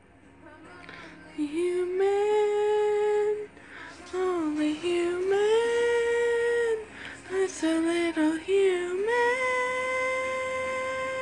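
A woman singing long held notes without words, starting about a second and a half in, gliding between pitches and settling on one long steady note from about nine seconds in.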